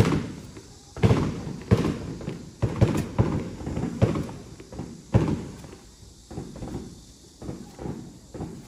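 A run of irregular heavy thumps and knocks, several loud ones in the first five seconds, then fainter and sparser.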